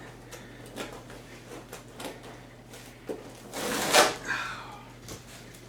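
Velcro strap being pulled off a car seat cushion: light handling clicks, then one short rasping tear about four seconds in.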